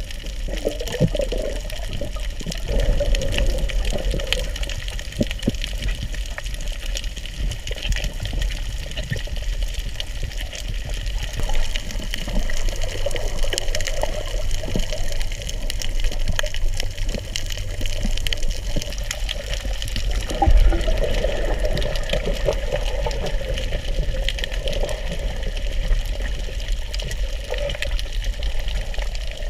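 Underwater sound through a camera's waterproof housing while swimming over a coral reef: a steady muffled water rush with scattered small clicks and crackles, swelling a little every several seconds.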